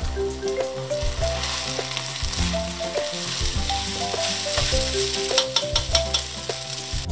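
Rice and chicken sizzling in a hot pot as they are stirred with a spatula, with scraping strokes against the pot that come thicker in the second half. Background music plays throughout.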